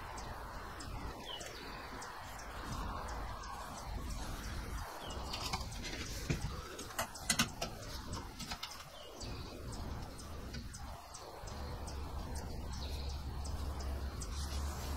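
Quiet workshop ambience with faint bird chirps and scattered light clicks and taps as a pin contour gauge is pressed onto a wooden keel and traced with a marker.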